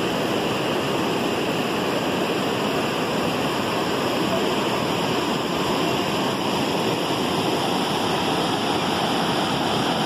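Steady rush of river water flowing over shallow rapids.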